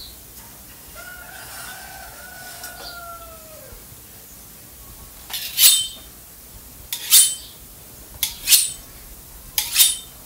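A rooster crows once, faintly, a long call that drops in pitch at its end. Then come four short, loud scraping strokes about a second and a half apart, from a machete blade being worked.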